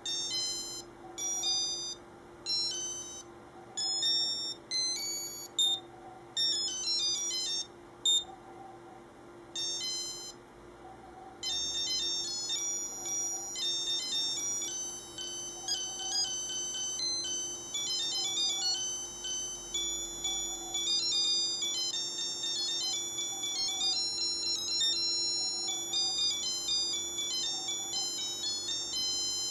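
Casio Melody M-1230 (module 82) melody watch playing tunes on its electronic beeper as high, pure beeping notes. For about the first eleven seconds the notes come in short phrases with pauses between them; after that a continuous melody plays.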